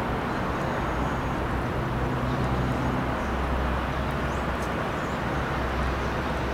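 Jet airliner flying low overhead: a steady rushing engine noise with a low hum underneath.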